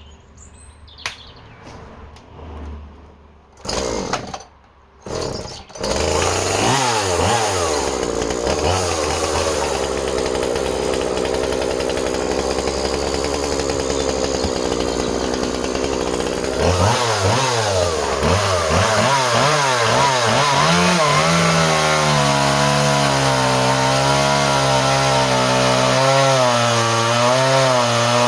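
Two-stroke chainsaw starting up about six seconds in after a few short bursts, then running at high revs. In the last third the engine pitch drops and wavers as the chain cuts through an ash round under load.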